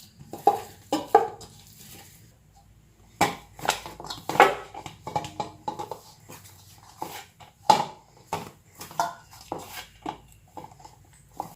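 Hands kneading a stiff wheat-flour poori dough in a wide bowl: irregular slaps, presses and knocks of dough against the bowl, with pauses between strokes.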